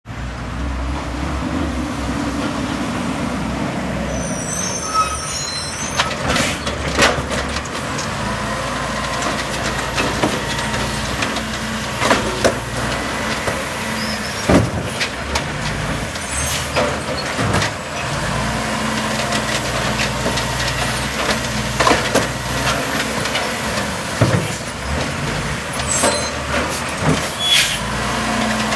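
Automated side-loader garbage truck working a row of wheeled carts: its diesel engine runs steadily while the hydraulic arm grabs, lifts and dumps the carts, with repeated knocks and clatters of the plastic bins, strongest around 6, 12, 14 and 22 seconds in.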